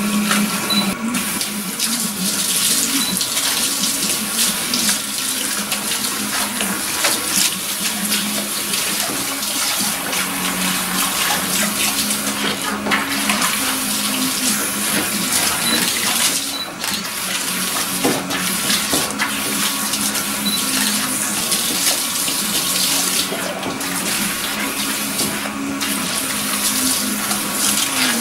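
Handheld shower sprayer rinsing shampoo out of long hair at a salon backwash basin: a steady rush of running water spraying through the hair and splashing into the sink, over a steady low hum.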